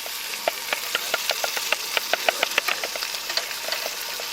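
Bacon frying in a pan: a steady sizzle with many sharp pops and crackles all through.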